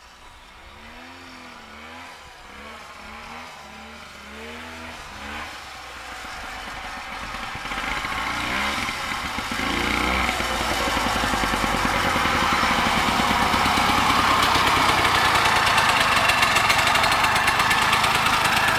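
1969 Sno-Jet snowmobile's two-stroke engine being ridden, its pitch rising and falling with the throttle while still distant, then growing steadily louder as the machine drives up close.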